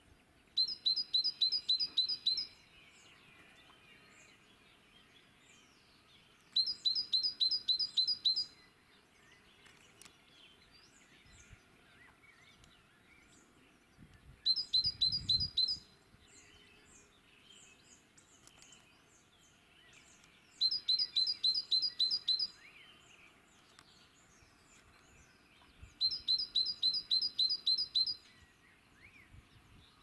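A songbird repeats a short song phrase five times, about every six seconds. Each phrase is a quick string of about eight high, evenly spaced notes. Fainter chirps of other small birds are heard between the phrases.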